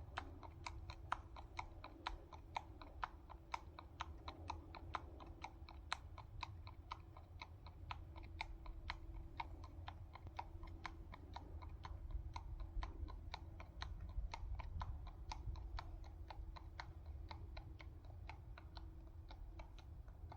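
A horse's hooves clip-clopping at a walk on a hard road surface: sharp clops in an even rhythm of about three to four a second.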